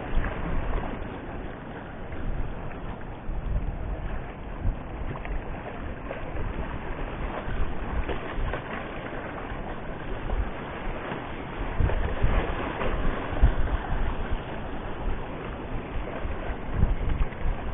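Wind gusting on the microphone over waves washing against the shore rocks.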